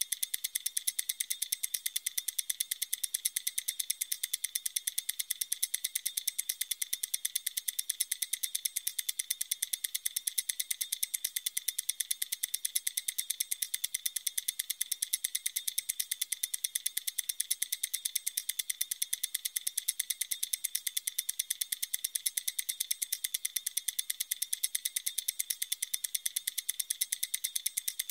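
Stopwatch ticking: a steady, even run of sharp, light ticks, about four a second, without a break.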